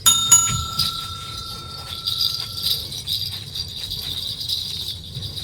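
A bell-like chime struck once, one tone ringing on for about three seconds, over steady jingle-bell shaking, likely as outro music.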